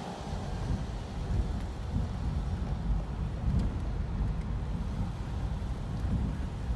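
Car running and moving, heard from inside the cabin as a steady low engine and road rumble.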